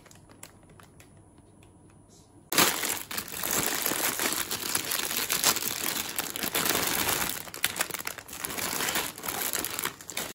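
Crinkling of handled material, possibly packaging, starting suddenly about two and a half seconds in after a few faint clicks, then going on densely with brief pauses.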